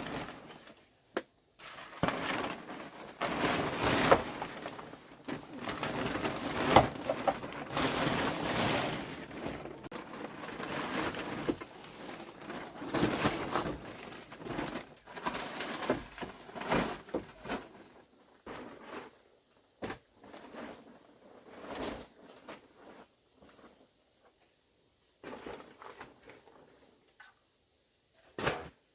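Irregular rustling, scraping and knocking from hands-on work, densest in the first two-thirds and sparse after. Behind it is a steady high drone of insects, crickets or cicadas.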